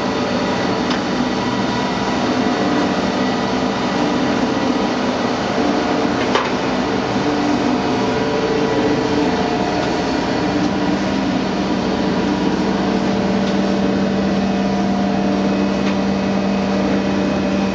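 Steady mechanical hum of a running 1971 Mattison 20 x 72 hydraulic reciprocating surface grinder, with a low steady tone that grows stronger about ten seconds in. A few light knocks come through the hum.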